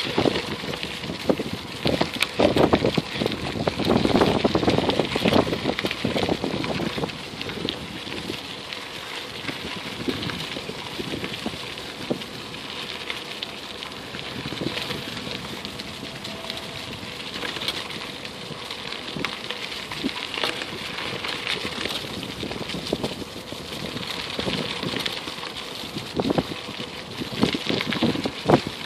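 Bicycle tyres rolling over a trail thickly covered in dry fallen leaves: a continuous crackling rustle studded with many small clicks and knocks. It is louder in the first few seconds and again near the end.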